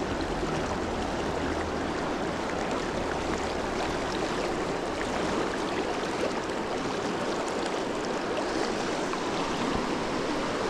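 Fast river current rushing steadily.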